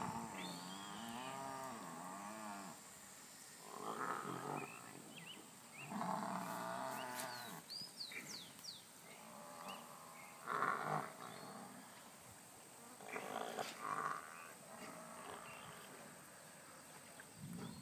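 Water buffalo lowing repeatedly: about six drawn-out calls, the first one long and wavering up and down in pitch, the later ones shorter.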